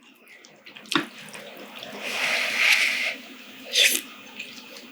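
Noodles slurped close to the microphone: one long hissing slurp about two to three seconds in, a click before it and a short slurp near the end.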